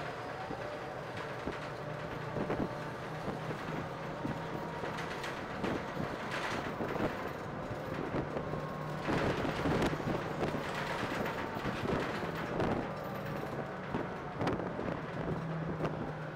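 A car moving along a road: a steady engine hum and road noise, with surges of wind noise on the microphone about a third and again halfway through.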